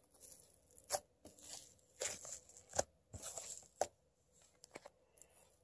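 Homemade slime being squished and pressed by hand, giving sharp sticky pops and clicks about once a second with softer crackling between them, dying down to a few small clicks over the last second or two.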